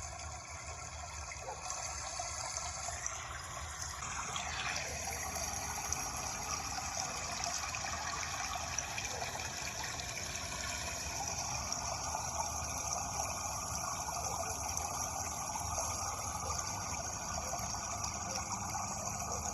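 Flowing water running steadily, a continuous rush with a brief shift in its texture about four seconds in.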